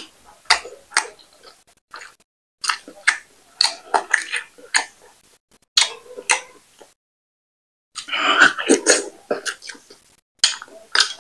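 Close-miked eating sounds: wet chewing and lip smacks of a mouthful of fufu and soup, in clusters of sharp sticky clicks with short pauses between them.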